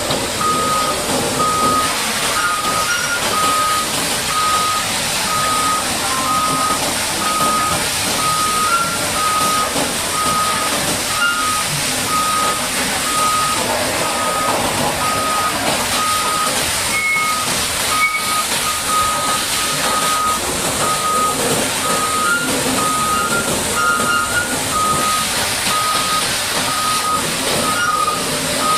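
Heavy-equipment reversing alarm beeping at an even pace, one steady tone repeated over and over, over a continuous hiss.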